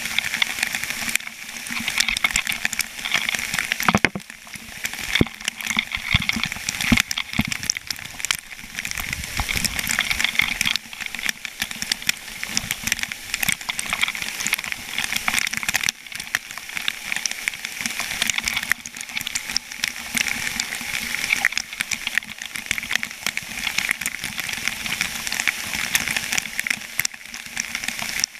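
Water pouring and splashing close by inside a dam outlet: a steady rushing hiss dense with small splashes and drips, with a few low thumps between about four and nine seconds in.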